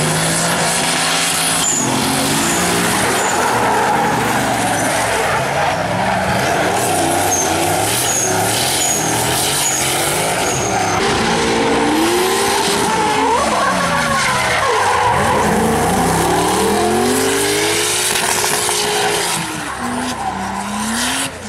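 Drift cars sliding sideways through corners, their engines revving hard, the pitch repeatedly climbing and falling, over the continuous screech of spinning, smoking tyres.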